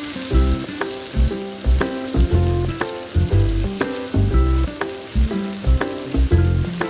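Background music with a steady beat and a plucked melody, over food sizzling as it fries in a pan.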